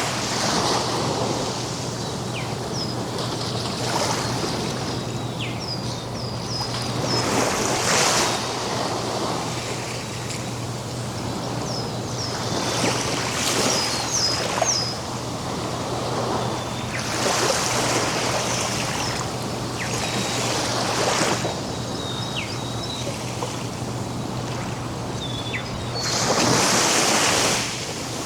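Ocean surf on a beach: waves breaking and washing in over a steady wash, with a louder surge every few seconds and the biggest one near the end. Short high bird chirps come through between the waves.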